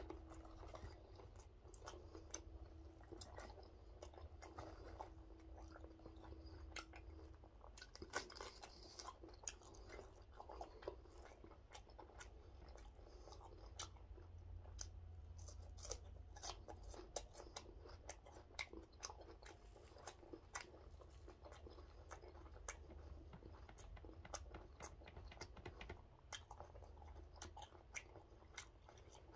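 A man chewing a mouthful of gwamegi wrapped in cabbage and laver: faint, frequent wet clicks and smacks of chewing, over a low steady hum.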